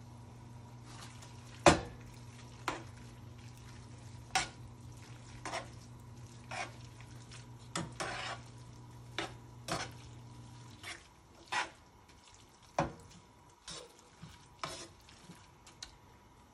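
Metal tongs clicking and scraping against a nonstick skillet as creamy linguine is tossed and stirred, irregular knocks about once a second over a faint sizzle. A steady low hum in the background stops about eleven seconds in.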